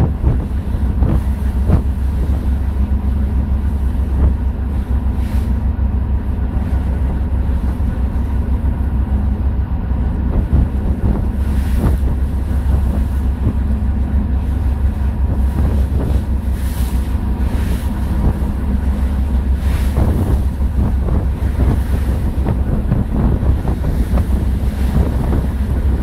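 A boat's engine giving a steady low drone, with wind buffeting the microphone in gusts and water washing around the hull.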